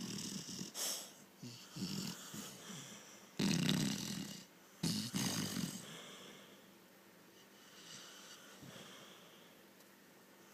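Pit bull puppy snoring, a run of snoring breaths with the two loudest about three and a half and five seconds in, then softer breaths.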